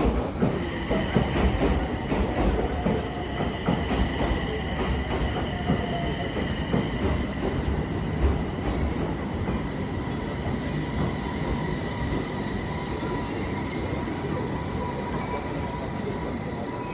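Passenger train running on the rails, with a steady rumble and rattle of the wheels. A high, even squeal from the wheels sets in about half a second in and fades away past the middle.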